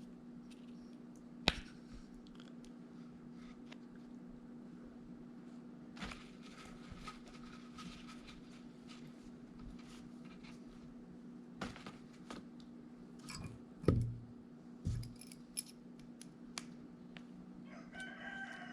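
Small clicks, taps and light scrapes of a fuel injector and its plastic screen casing and O-rings being handled and pried apart by hand, a few sharp clicks standing out, over a steady low hum.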